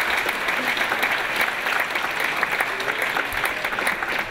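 Audience applauding: many hands clapping in a steady round of applause.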